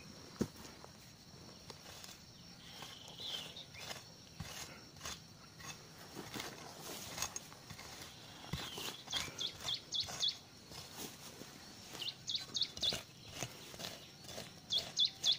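A hand tool scraping and knocking into dry, stony soil as a trench is dug around a dragon fruit plant's roots. A small bird calls now and then in quick runs of short, high chirps, loudest near the middle and again near the end.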